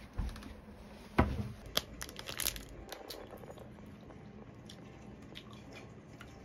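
A knock about a second in, then a short run of crackly crinkling and crunching from handling the plastic wrapper of a frozen ice-cream bar and biting into the bar, fading to small clicks.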